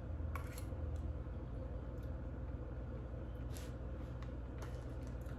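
A steady low hum of room noise, with a few faint clicks of a metal fork against a plastic meal tray.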